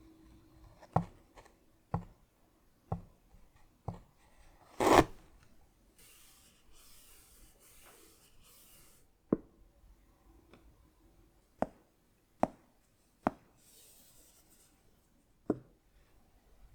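Fingers tapping and rubbing on a boxed trading-card collection's packaging: four crisp taps about a second apart, a louder tap about five seconds in, a few seconds of rubbing, then more scattered taps with another short rub.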